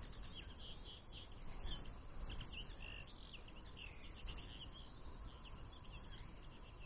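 Common linnets twittering: a fast run of short, high chirps, faint and continuous.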